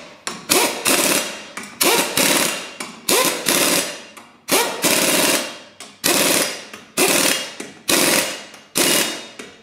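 Impact gun on its lowest setting, hammering lug nuts snug on a steel wheel in about a dozen short rattling bursts, each stopping abruptly.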